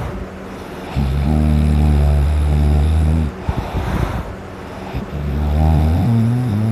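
Really loud, deep snoring: a long droning snore on the in-breath about a second in, a breathy out-breath, then another snore near the end.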